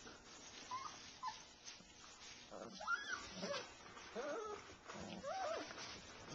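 Alaskan Malamute puppies whimpering: two faint short whines about a second in, then a series of louder whines that rise and fall in pitch through the second half.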